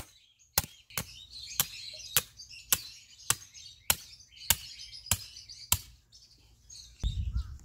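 A hammer driving a stake into the ground: about ten steady blows, roughly one every 0.6 s, stopping about three-quarters of the way through. Birds chirp in the background.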